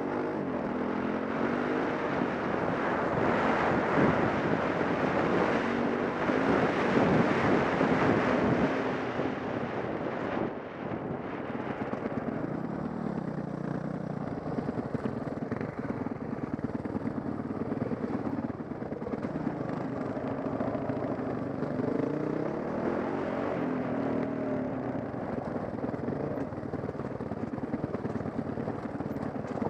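Dirt bike engine revving up and down on a rough trail. It works hardest and is loudest for the first nine seconds or so, then settles about ten seconds in to a lower, more even run with smaller rises and falls in pitch.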